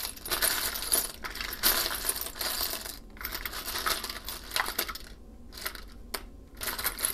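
Loose buttons clicking and clattering against one another as a hand rummages through them. The clatter is dense for the first few seconds and thins to scattered clicks later.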